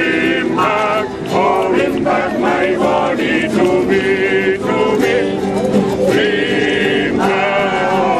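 A men's choir singing, with phrases of held notes that carry vibrato.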